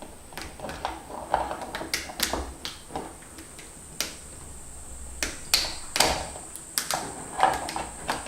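Mud crab being split in half and cleaned by hand: a run of irregular sharp cracks and knocks from the shell, a few louder ones past the middle.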